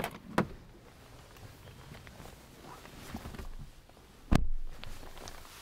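Range Rover rear passenger door latch clicking open twice, then the rustle of a person climbing onto the leather rear seat, with a single heavy thump about four seconds in.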